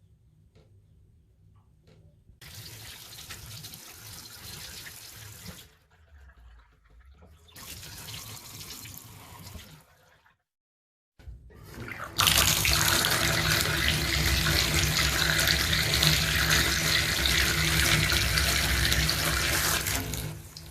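Hot water tap running, the water going straight down a drain that has just been cleared of a blockage. Two shorter stretches of flow, then a cut to silence about ten seconds in, and from about twelve seconds a louder steady gush.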